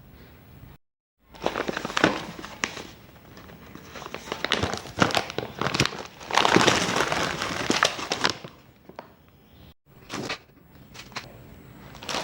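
Crinkling and rustling with many sharp clicks and small knocks, coming in several stretches and loudest past the middle, then thinning to a few scattered clicks near the end.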